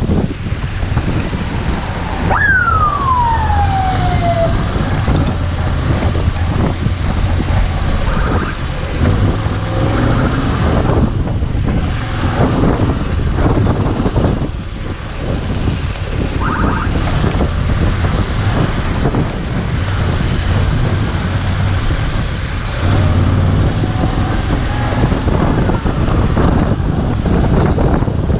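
Motorcycle riding on a wet road: heavy wind and road noise over the engine's steady low hum. About two seconds in, one high tone falls in pitch over about two seconds.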